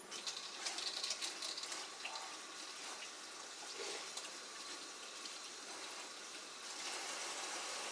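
Kitchen faucet running into a sink while hands are rinsed under it, with some splashing in the first second or two. The water cuts off near the end.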